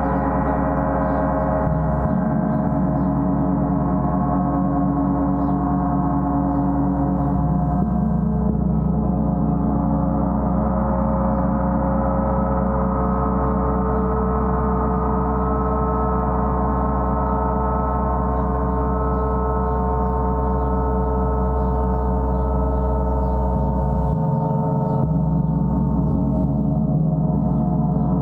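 Gong played continuously: a steady, dense drone of many ringing overtones with no separate strikes, its tones slowly swelling and fading in turn.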